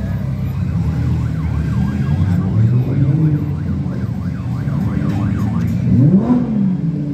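Lamborghini supercars crawling past one after another with low engine rumble, one engine revving up sharply and dropping back about six seconds in. A warbling, siren-like tone rises and falls repeatedly in the middle.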